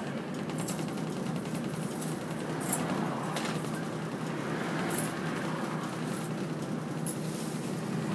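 Steady interior noise of a route bus with its diesel engine running, heard from inside the cabin, with one sharp click about a third of the way in.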